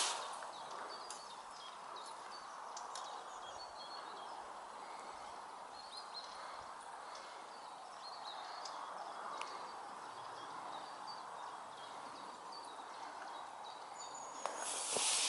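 Riverside outdoor ambience: a soft steady rush with faint, scattered bird chirps. A louder rustle at the very start and again near the end.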